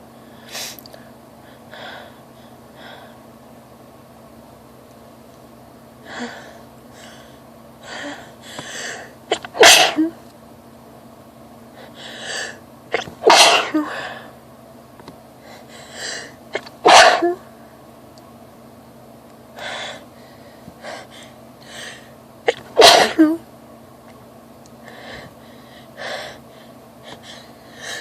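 A woman sneezing from allergies: four loud sneezes a few seconds apart, each led by a few shorter, quieter breaths as she builds up to it.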